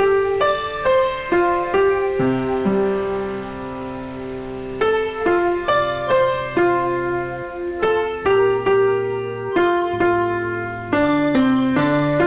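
Slow background piano music: melody notes struck one after another, in short runs, over held bass notes.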